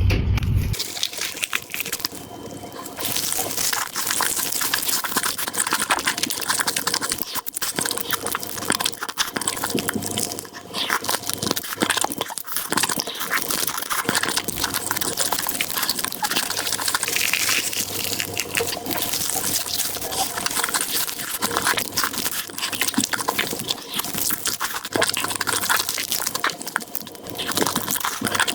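Close-miked mukbang eating sounds: a dense, continuous run of wet smacking, squishing and crackling from a mouth chewing food.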